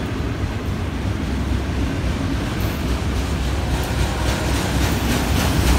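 Florida East Coast Railway freight train of autorack cars rolling past, with a steady rumble of steel wheels on rail. From about four seconds in, quick rhythmic wheel clicks join the rumble.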